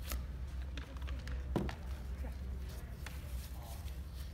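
Light taps and handling sounds from a glue stick and two pieces of corrugated cardboard being put together. A few short, sharp clicks, the clearest about one and a half seconds in, over a steady low background hum.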